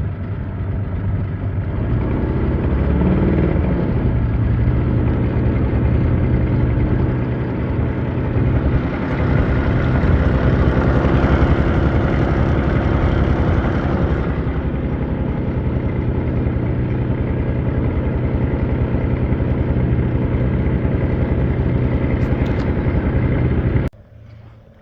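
Boat motor running steadily under load while pushing a floating dock. It runs harder for a few seconds in the middle and cuts off suddenly near the end.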